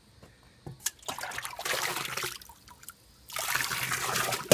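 Ash-and-water slurry splashing and trickling as it is ladled with a metal ladle, in two pours of about a second each, while the ash is washed for glaze. A sharp knock of the ladle comes at the very end.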